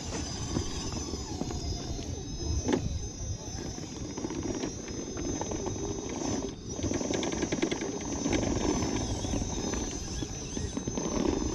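Radio-controlled scale rock crawler's small electric motor and geartrain running in stretches of a few seconds as the truck climbs a rock slab, with a couple of sharp clicks. A steady high insect drone runs underneath.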